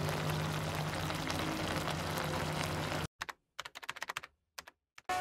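A pan of spicy chicken and rice-cake stir-fry simmering over a burner, with a steady low hum. About three seconds in it cuts off suddenly to a scattered run of light typewriter key clicks.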